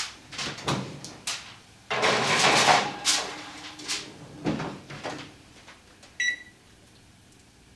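Oven door opened and a foil-covered baking pan slid onto the oven rack, with clatter, knocks and a scrape of about a second, then the door shut. About six seconds in comes a single short electronic beep from the range's control panel.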